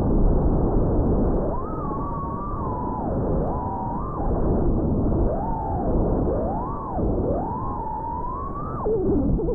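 FPV racing quadcopter's motors whining, the pitch swooping up and down again and again as the throttle is worked, over a rough rush of wind and propeller noise.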